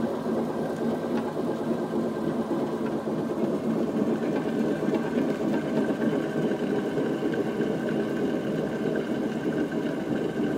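Denis Cimaf 180D forestry mulcher drum spinning at around 600–700 rpm, turned through a belt by a two-horsepower electric motor: a steady mechanical running noise, with a thin whine coming in about halfway. The owner takes the noise for a worn-out drum bearing, which has about ten thousandths of play.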